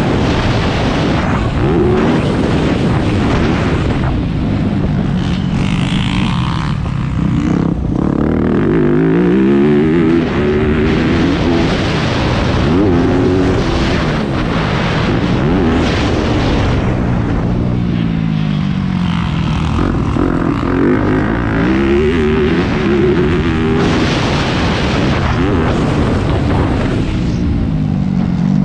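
Yamaha YZ250F four-stroke single-cylinder motocross bike engine at full race pace, revving up and dropping back again and again as the rider throttles, shifts and rolls off for jumps and corners, with wind rushing over the microphone.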